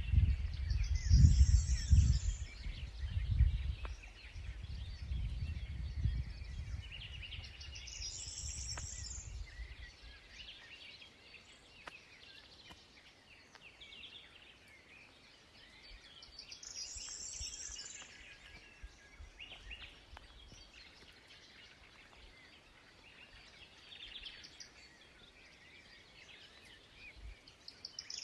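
Outdoor ambience of several songbirds singing, with a high song phrase repeating about every eight or nine seconds and softer chirps between. A low rumbling noise is heard through the first several seconds and then dies away.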